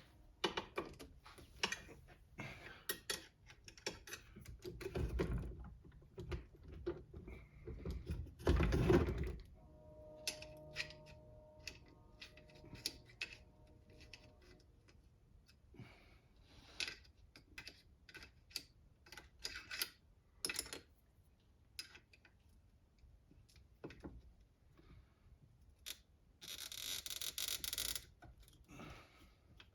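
Scattered clicks, taps and light rattles of hand tools and small metal parts as an RC car is taken apart, with a heavier knock about nine seconds in and a short rattling burst near the end.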